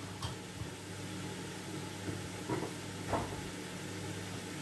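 Lamb, onions and garlic frying in oil in a stainless-steel pot: a steady, soft sizzle over a low steady hum, with a couple of faint knocks about two and a half and three seconds in.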